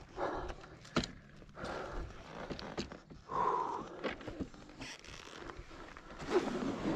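Engine not running: a rider's heavy breathing, three deep breaths about three seconds apart, with scuffs, knocks and rustling of brush as the dirt bike is handled by hand.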